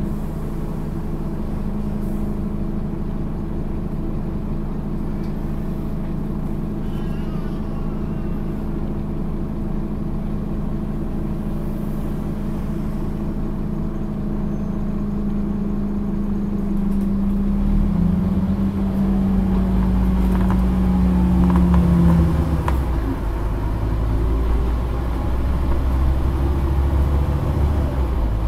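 Scania OmniCity N230UD bus's engine and driveline running on the move, heard from inside the passenger saloon: a steady drone with a held whine. About two-thirds of the way through, a deeper, louder rumble sets in as the bus pulls harder, and soon after the whine drops a little in pitch.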